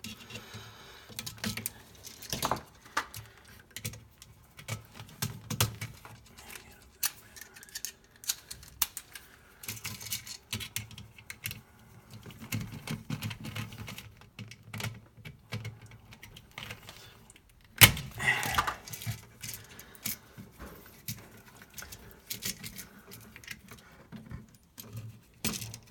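Scattered small clicks and metallic rattles from a screwdriver turning a GFCI receptacle's ground terminal screw, and from the receptacle and its wires being handled, with one sharp, louder click about two-thirds of the way through.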